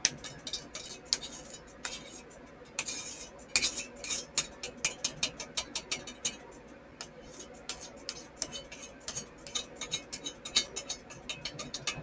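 Sharp snapping sparks from a home-made capacitor welder, charged by a 30 V power supply, as its positive lead is dabbed again and again on grounded sheet metal. The snaps come irregularly, about three or four a second, with a brief crackling burst about three seconds in.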